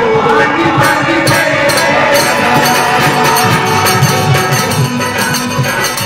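A man singing into a microphone, backed by a tambourine jingling in a steady beat and other instruments.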